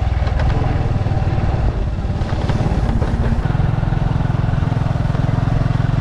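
Motorcycle engine running steadily under way, with a fast low pulsing that grows stronger about three and a half seconds in.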